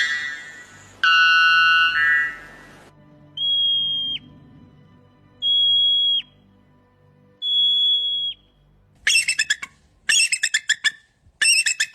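Animal calls in a sequence: a buzzy call with many overtones, then three high steady whistles about two seconds apart, each ending in a quick downward drop, then a fast stuttering series of short squawking calls near the end.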